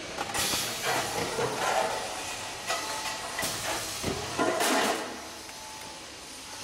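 Four-roll sheet-metal bending machine at work, with several loud hissing, rushing bursts over a steady machine noise in the first five seconds, then steadier running.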